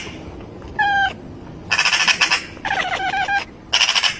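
A cat gives a short chirping meow at a Eurasian magpie, and the magpie answers with bursts of harsh, rattling chatter.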